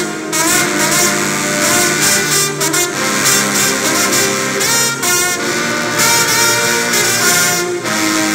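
A trombone section playing together in loud, held brass chords that change every second or so.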